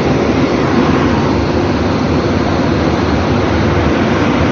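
Indian Railways electric locomotive standing switched on, its machinery giving a loud, steady rushing noise.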